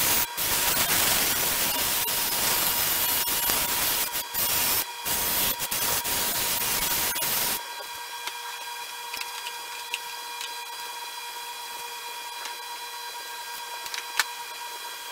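Wood being worked on a running wood lathe: a loud rushing that stops and starts a few times, lasting about seven and a half seconds. Then the lathe runs on alone with a steady whine, and a single sharp click comes near the end.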